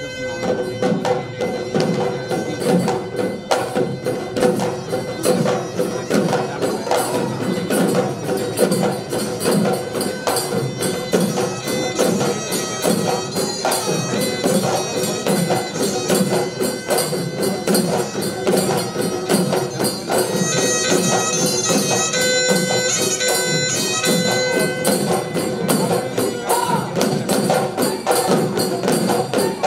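Live Bihu folk music: a pepa (buffalo-horn pipe) plays a reedy melody with a held note underneath, over dhol drums beating a fast, even rhythm with jingling percussion.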